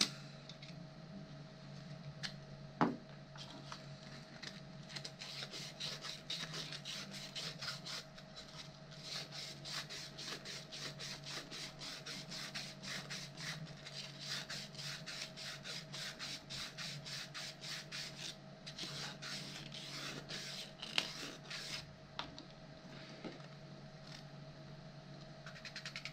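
A 3D-printed plastic robot part being smoothed by hand with an abrasive, in quick, even back-and-forth strokes that start a few seconds in and stop near the end. There is a single sharp click before the strokes begin.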